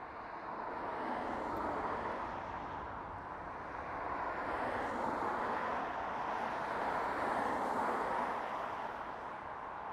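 Passing road traffic: tyre and engine noise swelling and fading as vehicles go by.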